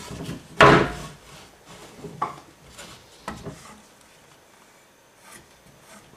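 A wooden board and a circular saw being handled and set in place, with the saw not running. A sharp knock comes about half a second in, then a few lighter knocks and scrapes of wood, trailing off to quiet.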